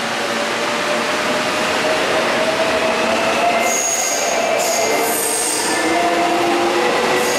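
Korail Line 3 electric subway train pulling out of the station: its traction motors whine, rising steadily in pitch as it gathers speed, over the rumble of the wheels on the rails. Brief high-pitched wheel squeals come in around the middle.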